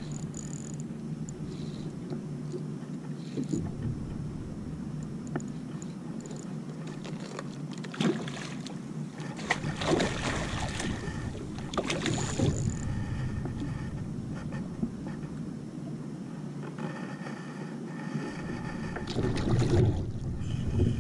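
Wind and water washing around a kayak at sea, broken by splashes and knocks as a hooked fish thrashes at the surface beside the hull about halfway through and again near the end as it is gaffed and lifted aboard.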